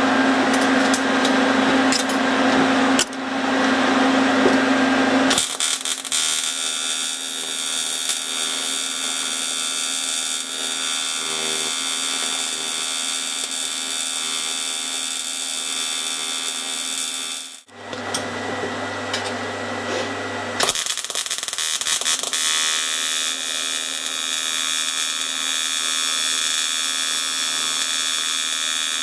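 TIG welding arc buzzing steadily while silicon bronze filler is braze-welded onto a cast iron casting. The sound turns from a harsh hiss to a smoother steady buzz about five seconds in. It cuts out briefly just before the eighteenth second, comes back hissing, and settles into the buzz again a few seconds later.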